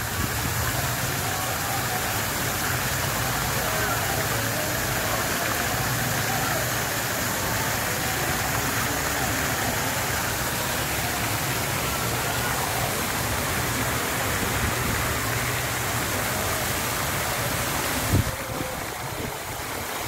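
Steady rush of water from fountain jets and a small waterfall splashing into a pond, with faint voices in the background. A single brief knock near the end.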